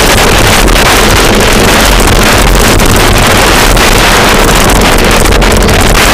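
Loud, steady wind buffeting on a Garmin VIRB action camera's microphone as a bicycle descends a steep road at about 40 to 50 mph.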